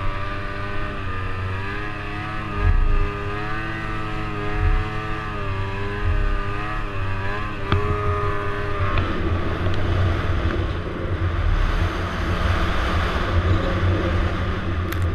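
Snowmobile engine running under throttle, its pitch wavering up and down as the throttle changes. About nine seconds in, the clear engine note gives way to a steadier, rougher rushing noise over the engine.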